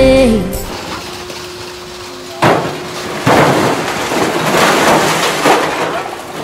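Glass bottles crashing and clattering into a steel recycling dumpster. The crash starts suddenly about two and a half seconds in, and more crashes follow for a few seconds. Background music fades out in the first half second.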